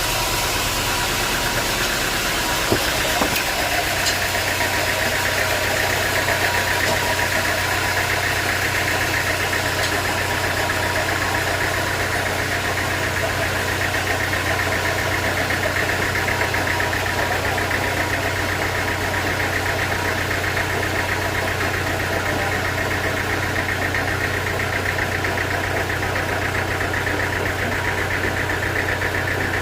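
Sawmill machinery running steadily with a constant motor drone, two sharp knocks about three seconds in, and a deeper hum that sets in a moment later.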